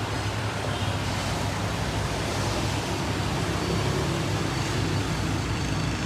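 Steady road traffic noise from cars passing on the street, with a low hum underneath.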